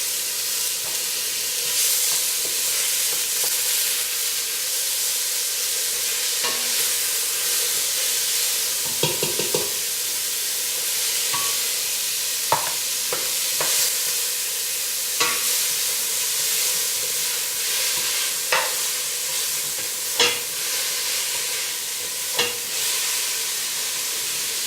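Cremini mushrooms with a garlic, ginger and onion mix sizzling steadily in hot oil in a large pot. The sizzle jumps louder right at the start as the mix goes in. A utensil stirring now and then clicks sharply against the pot.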